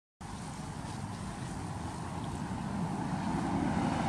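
Steady outdoor background noise: a low rumble with a fainter hiss above it and no distinct events, growing slightly louder.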